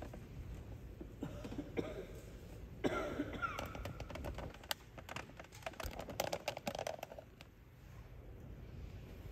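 Faint room sounds of a gathered congregation: scattered small clicks and shuffling, with a cough about three seconds in.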